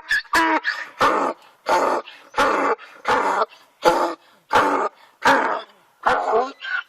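A dog barking again and again, about a dozen short barks at a steady pace, roughly one every 0.7 seconds.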